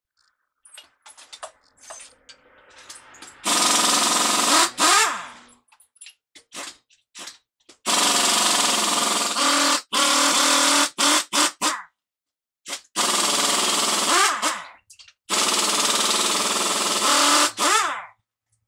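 Pneumatic impact wrench hammering on a heavy truck's wheel hub bolts in about five bursts of one to two seconds, its motor whine sliding in pitch as each burst ends, with short clicks between the bursts.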